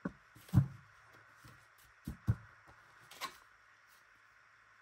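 A deck of oracle cards being handled at a table: a few soft knocks, the loudest about half a second in and two close together around two seconds, and a brief rustle of cards a little past three seconds as one is drawn.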